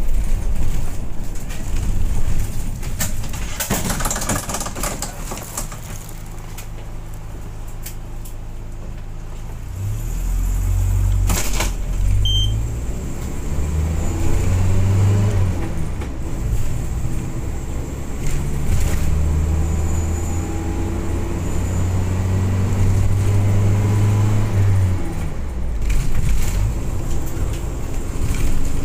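Running noise of a passenger vehicle heard from inside while riding: a low motor drone that grows stronger about ten seconds in, with whining pitch lines that rise and fall. A sharp knock comes about eleven seconds in.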